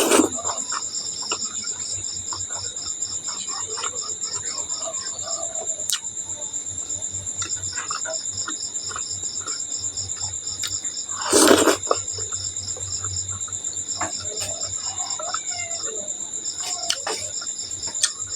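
Insects trilling steadily with a fast pulsing chirr, under the small clicks and mouth sounds of eating, with one louder noisy burst about eleven seconds in.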